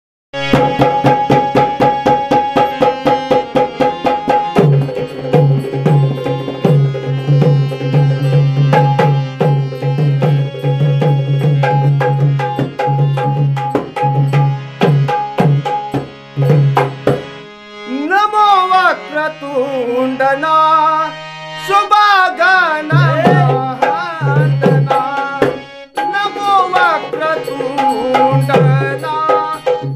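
Dholki barrel drum played by hand in a fast rhythm over the steady held chords of a harmonium. About eighteen seconds in, the drum stops and a singer begins a traditional tamasha gan. The dholki comes back in a few seconds later under the voice.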